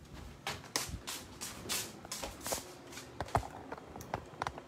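Footsteps and handling rustle from a hand-held phone as its holder walks: a run of soft, uneven knocks and brushes.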